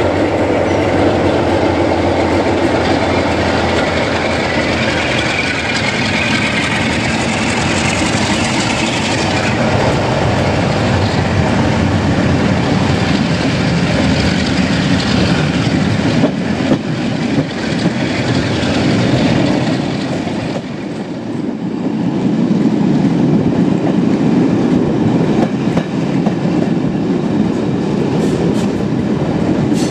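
Loco-hauled passenger train hauled by Class 47 diesel locomotives running, heard from an open carriage window: steady rumble and wheel clatter on the rails, with a few sharp clicks a little past halfway.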